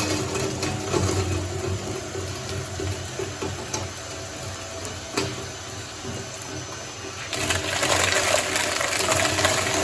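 Shredder running and churning through slime: a wet churning noise over the steady hum of the machine. It eases off through the middle, with one sharp click about five seconds in, and grows louder again near the end.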